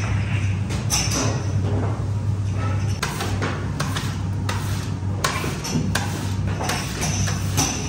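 Steady low hum of bakery machinery. Over it come irregular knocks and wet slaps, a second or two apart, as sticky bread dough is scraped and pulled by hand around a large steel mixer bowl.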